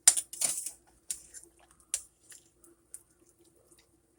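Liquid splashing and dripping as food is lifted out of a pot of boiled sides. There is a loud burst in the first half second, then scattered softer drips and light clicks over a faint steady hum.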